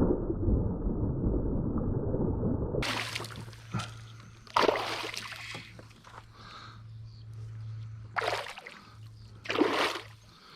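Water splashing and sloshing in short bursts as a hooked largemouth bass thrashes at the surface beside a kayak while being landed. A loud muffled rumble fills the first few seconds, and a faint steady low hum runs under the rest.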